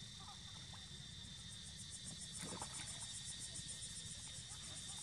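Insects chirring steadily in a high, fast-pulsing chorus, over a faint low rumble, with one short noise about halfway through.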